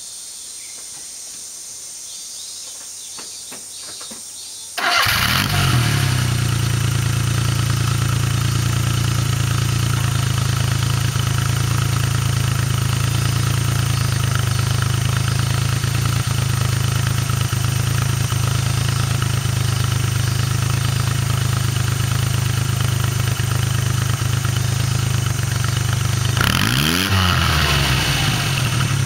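Daihatsu Midget II kei truck's 660 cc three-cylinder engine starting up about five seconds in, then idling steadily through a one-off exhaust with a bullet-type silencer and its inner silencer fitted. Near the end it is revved once, the pitch rising and falling back to idle.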